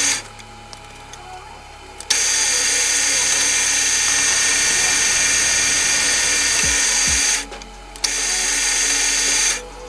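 Metal lathe turning an aluminum workpiece, the cutting tool taking a cut with a loud, steady hiss and high whine. It drops away abruptly just after it starts, comes back about two seconds in, breaks off again for about half a second near the end, and stops just before the end.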